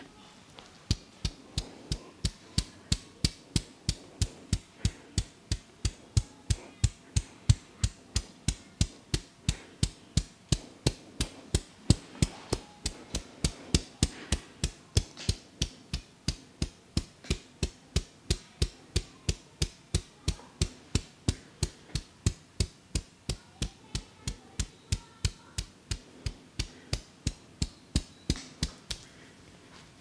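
Rhythmic percussive head massage: the barber's hands striking the scalp in quick, even slaps or chops, about three a second, stopping a second before the end.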